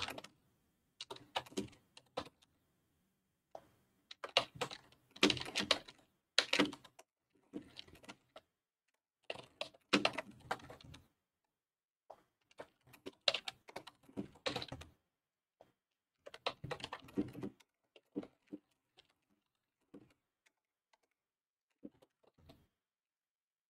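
Typing on a computer keyboard: several bursts of quick key clicks with short pauses between them.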